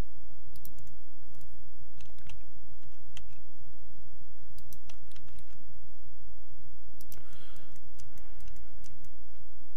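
Computer keyboard keys and mouse buttons clicking now and then, scattered single clicks over a steady low hum.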